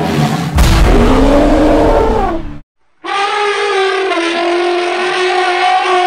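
Deinotherium creature sound effect built from elephant and other animal recordings. A loud, deep bellow whose pitch rises and then falls is followed, after a brief silence, by a long trumpet-like call held at one pitch.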